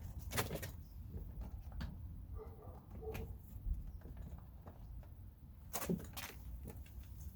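Scattered light clicks and knocks of hands and tools working on a car door's trim and wiring, with a sharper pair of clicks about half a second in and another about six seconds in.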